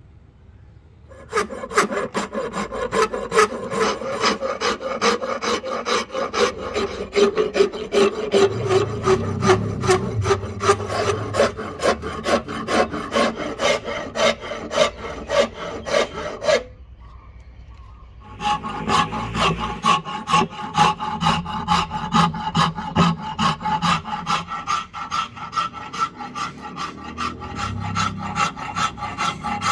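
Steel hand file scraping back and forth across a rosewood axe handle held in a bench vise, in quick repeated strokes about twice a second. The filing starts about a second in, stops for a second or two past the middle, then goes on.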